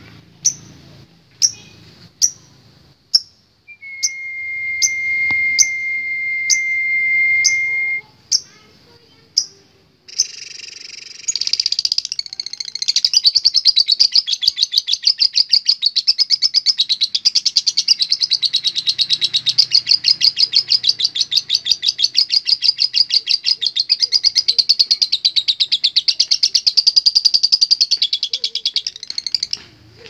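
Fischer's lovebird calling: for about ten seconds, sharp high chirps repeat roughly once a second, with a steady high whistle-like tone for a few seconds among them. Then comes a long, fast chattering trill, the 'ngekek', that runs for nearly twenty seconds.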